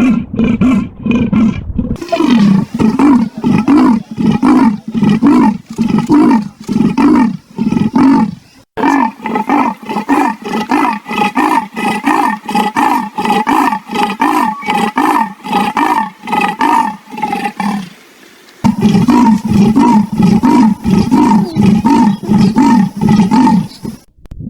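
Leopard calling: a fast, even series of rasping grunts, several a second, heard in a few separate recordings that cut abruptly into one another.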